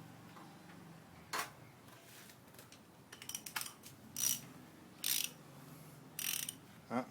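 A hand tool ratcheting in a series of short strokes, roughly one burst a second, against faint background noise.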